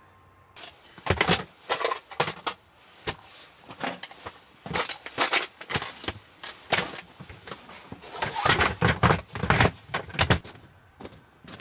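A run of irregular knocks and clatters, some sharp and loud, from objects being handled. It starts about half a second in and thins out shortly before the end.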